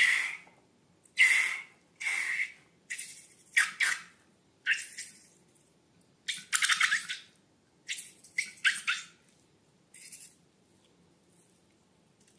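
Balloons being squeezed, giving about a dozen short wet squirts and sputters of air and liquid, with one longer crackling sputter in the middle.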